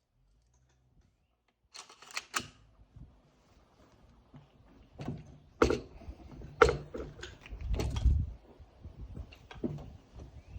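Irregular clicks and knocks of handling a rifle and shooting gear, several sharp ones about two seconds in and the loudest a little past five and six seconds, with a low rumbling knock near eight seconds; no gunshot.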